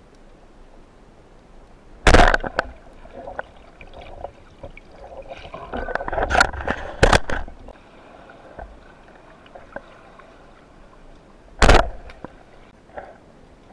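Rubber-band speargun firing underwater: a sharp crack about two seconds in, then a few seconds of rattling and clattering from the shaft and line. Another sharp crack, like a second shot, comes near the end.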